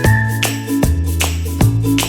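Background music: a few struck notes, each ringing on, over held bass notes.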